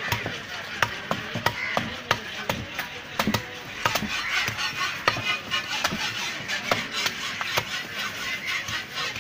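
Large knife chopping fish on a wooden chopping block: repeated sharp knocks at irregular intervals, several a second.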